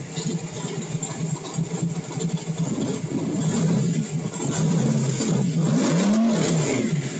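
Small-block V8 on E85 with a blow-through carburetor, heard from inside the cab. It idles steadily, then from about three seconds in it is revved in several throttle blips, the pitch rising and falling. The engine is part-way through warming up.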